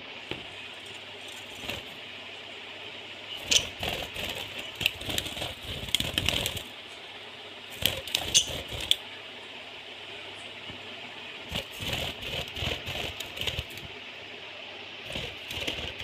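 Pet budgerigars chirping and chattering in a wire cage in several bursts, with sharp clicks and rattles as they move about the cage.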